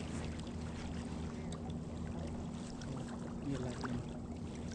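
Steady low motor hum, one constant tone over a low rumble, with a few faint clicks.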